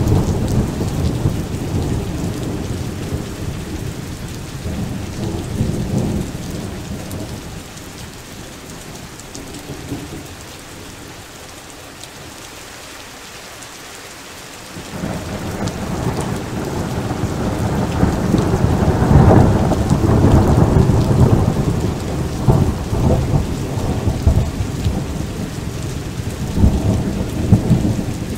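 Thunder rolling over steady rain. A rumble fades away over the first several seconds, leaving mostly rain. About halfway through a second long roll of thunder starts, builds to its loudest a few seconds later and keeps rumbling in swells.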